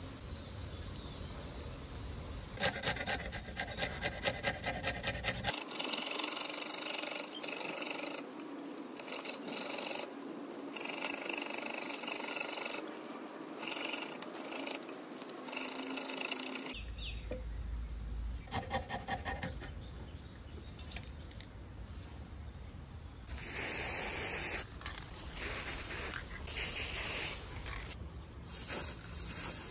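Hand filing on a small homemade Beyblade part: rough, repeated rasping strokes in several short stretches that change abruptly, with a quick run of about four strokes a second about three seconds in.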